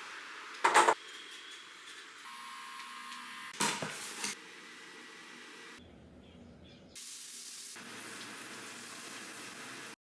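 A steady hiss, broken by two short, louder sounds, one about a second in and one about four seconds in. The background changes abruptly a few times and stops just before the end.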